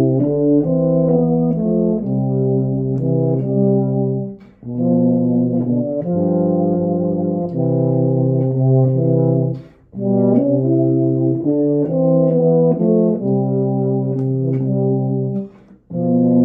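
Euphoniums playing a slow hymn in two parts, soprano line over bass line, in sustained legato phrases with short breath breaks between them.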